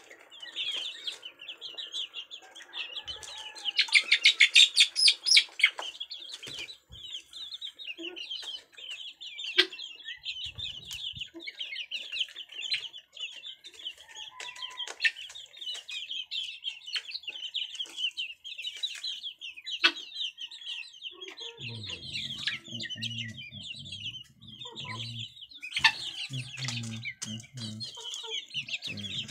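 A flock of chickens feeding: chicks peep continuously in a high chorus while hens cluck, with a louder outburst about four seconds in and lower clucking near the end. Occasional sharp clicks of beaks pecking at a metal cup of grain.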